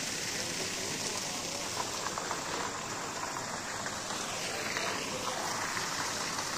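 Steady splashing hiss of water falling from an artificial waterfall down a rock wall into a pool.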